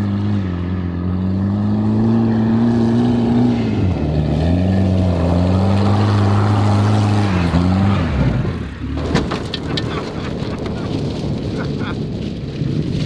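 Turbo Volvo 940 engine revving hard on an off-road run. Its note climbs and drops twice as it shifts or lifts. About eight seconds in the engine note falls away to a rough, rattling noise with scattered knocks.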